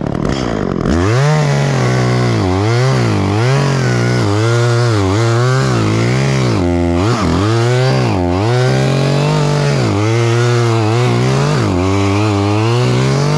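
Petrol chainsaw revving up about a second in, then running at high throttle while cutting into a tree trunk. Its pitch sags under load and recovers again and again.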